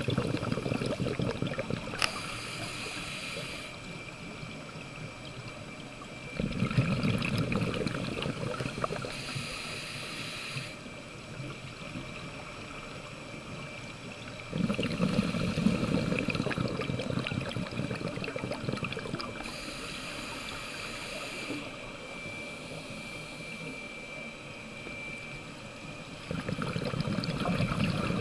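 Scuba diver's regulator breathing heard underwater: a bubbling rush of exhaled air four times, each lasting a few seconds, with quieter stretches between.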